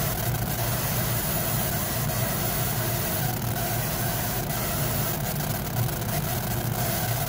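Laser engraver running as it engraves wood: a steady mechanical hum from the machine and its fans.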